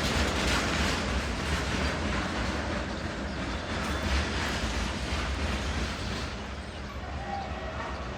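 Passenger train running past on the track: a steady rumble of wheels and coaches that slowly dies away as it moves off.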